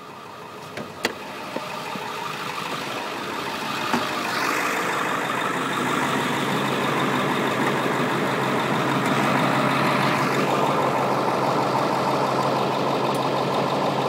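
The 7.3-litre Powerstroke diesel V8 of a 2002 Ford F-250 Super Duty idling steadily. It grows louder over the first few seconds, then holds level.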